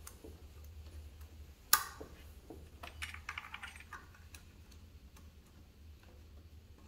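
Scattered light clicks and clinks of small parts and hand tools being handled while the engine's intake and fuel rail are put back together, with one sharp click about a second and a half in and a quick run of clicks around three seconds, over a faint low hum.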